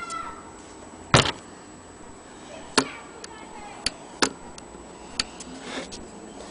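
Scattered sharp clicks and knocks of metal parts as an antique Willcox & Gibbs sewing machine is handled. The loudest is a double knock about a second in.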